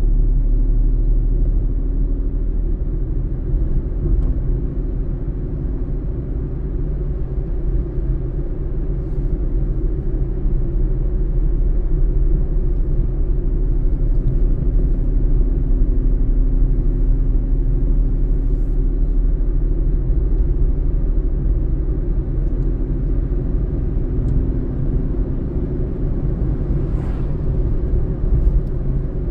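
A car driving at steady speed: constant low engine and road rumble, with a faint engine hum that fades in and out.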